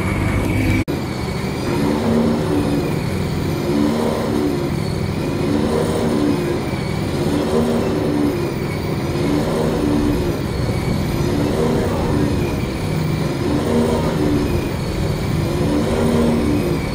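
Race-prepared BMW Z4's engine idling, its pitch rising and falling in a regular swell about every two seconds. The sound breaks off abruptly just under a second in, where another car's engine gives way to it.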